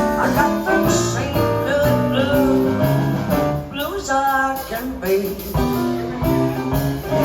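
Music: a voice singing over guitar accompaniment.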